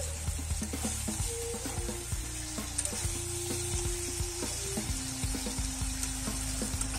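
Chicken pieces and potatoes in masala sizzling in a wok (kadai), stirred by a metal spatula with frequent clicks and scrapes against the pan. This is the kosha stage, the meat and spices being fried down together.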